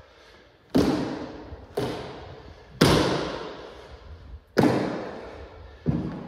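Five heavy thuds of feet stamping and landing on a hardwood floor during a kung fu weapons form, each followed by an echo that dies away over about a second in a large room.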